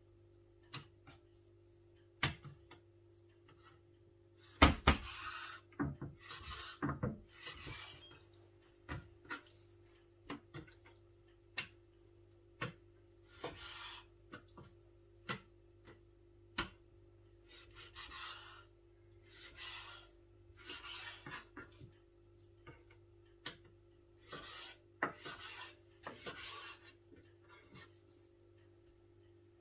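Chef's knife slicing raw beef on a wooden cutting board: a run of drawn strokes, each with the blade rasping through the meat and across the board, with sharp taps as the edge meets the wood. A faint steady hum runs underneath.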